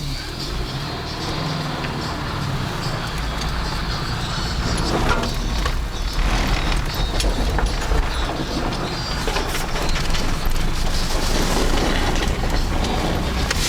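Subaru driving on ice, a steady rumble of engine and tyres that builds over the first few seconds and then holds.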